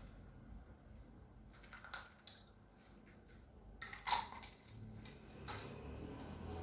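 A few light clicks and knocks of small hard objects being handled on a work surface, the loudest about four seconds in.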